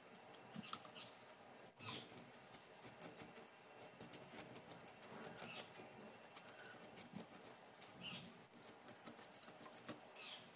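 Faint scratching and clicking as a fingernail picks and peels dried paint flakes off a brass door fitting, in short irregular scrapes.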